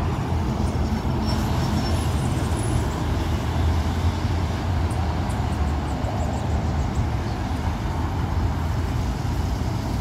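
Boeing 737 MAX 8's twin CFM LEAP-1B turbofan engines heard as a steady, deep rumble as the airliner flies low on final approach and moves away to land.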